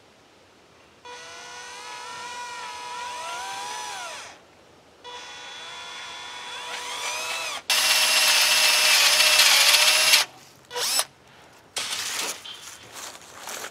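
Panasonic cordless drill boring a 13/16-inch hole into the end of a wooden stick. It runs in two bursts of motor whine whose pitch sags and recovers as the bit loads up, then a louder, harsher stretch as the bit cuts into the wood, followed by a few short knocks near the end.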